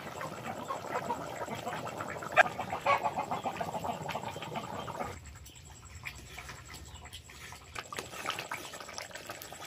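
Thick chicken curry boiling in a wok over a wood fire, bubbling and popping, with one sharper pop about two and a half seconds in. Near the end a metal ladle stirs it, scraping the pan.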